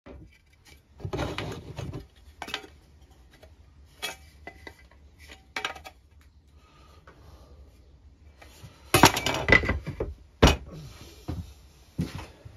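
Wood and hand tools being handled on a workbench: scattered knocks and clinks, with a louder clatter about nine seconds in and a sharp knock just after it.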